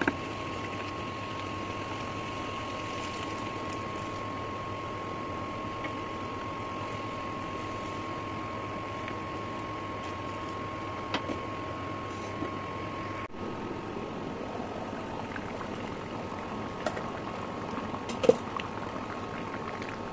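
Curry simmering in a metal pan on an induction cooker, with a steady high whine from the cooker running under the bubbling. A few short knocks of a wooden spatula against the pan; the loudest comes near the end.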